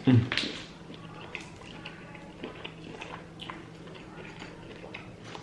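Eating a seafood boil: scattered small clicks, taps and wet mouth sounds of chewing and handling shellfish, with one brief louder burst right at the start.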